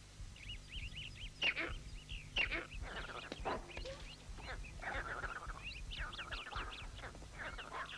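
A troop of monkeys calling: many short, high-pitched chirps and cries overlapping one another, with a few louder calls in the first half.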